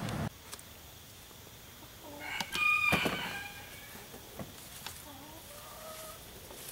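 A rooster crows once, about two seconds in, a single pitched call lasting about a second. Fainter calls follow later.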